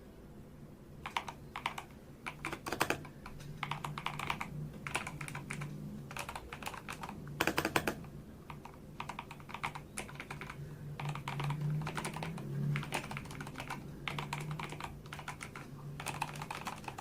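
Typing on a Tecware Phantom+ mechanical keyboard with pre-lubed switches: irregular bursts of key clicks with short pauses between them, over a faint steady low hum.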